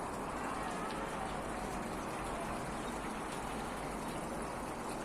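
Small recirculating fountain and waterfall splashing and trickling steadily.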